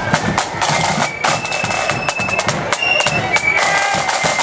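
Marching flute band playing: side drums beat fast, crisp strokes over a bass drum, while flutes carry the tune in high, held notes.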